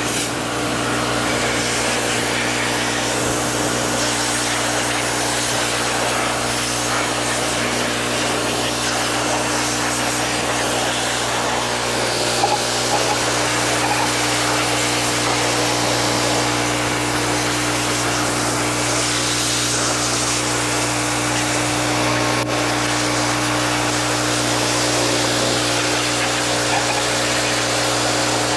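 Pressure washer running steadily: its motor hums under the hiss of the high-pressure water jet spraying a dirt bike clean.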